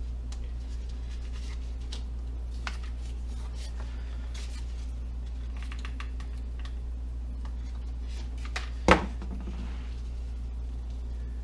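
Light clicks, taps and rustles of parts being handled and worked on a workbench during an RC plane build, with one loud knock about nine seconds in, over a steady low hum.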